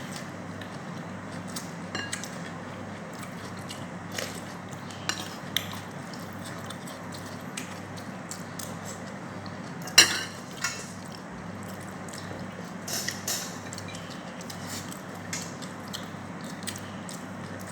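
Cutlery clinking and scraping against a plate during a meal: scattered short clicks, the loudest about ten seconds in, over a steady low hum.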